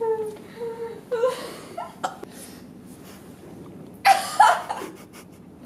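A woman laughing, breaking out into a loud burst of laughter about four seconds in, with short breathy chuckles and vocal sounds before it.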